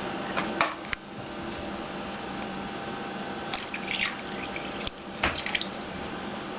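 Himalayan kitten splashing the water in her water bowl, in three short bouts of splashing over a steady low room hum.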